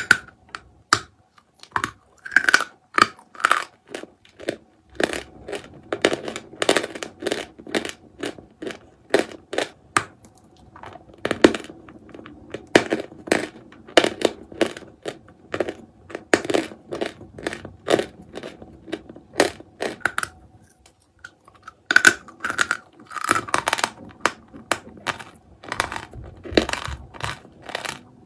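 A block of white pressed chalk being bitten and chewed: a rapid run of sharp, crisp crunches, with a brief pause about three-quarters of the way through.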